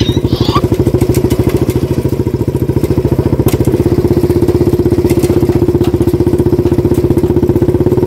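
Small engine of a homemade mini Ford tractor running steadily as it pulls a trolley, with a fast, even putter and a steady hum.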